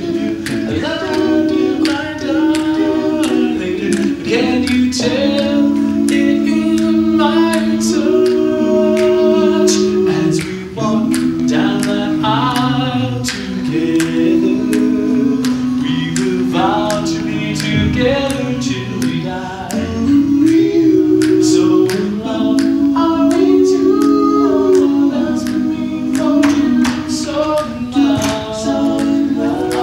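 Male a cappella doo-wop group singing a slow ballad in close harmony, held chords over a bass voice, with no instruments. Sharp clicks keep the beat under the voices.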